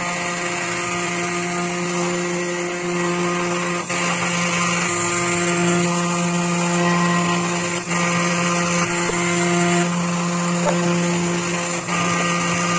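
Spindle motor of a homemade Arduino GRBL CNC router running at a steady pitch, its end mill cutting clear acrylic. The steady whine sits over a cutting hiss that rises and falls every few seconds as the tool moves through the cut.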